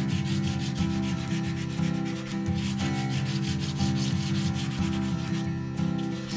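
Yellow chalk scribbling on painted paper: rapid, scratchy back-and-forth rubbing strokes.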